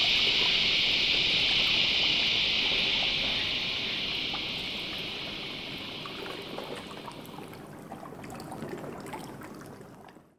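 Steady high-pitched insect chorus, such as cicadas, over faint garden ambience with small ticks. The chorus fades away over the second half, and everything fades to silence at the very end.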